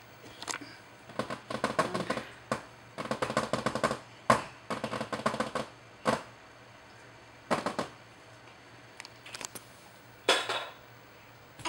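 Irregular bursts of rapid clicking and tapping, densest in the first half, with a few single clicks later and a last short burst near the end.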